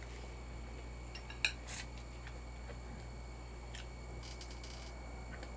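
A fork clinking and scraping against a bowl a few times while eating pasta, two sharp clinks close together about a second and a half in, over a steady low hum.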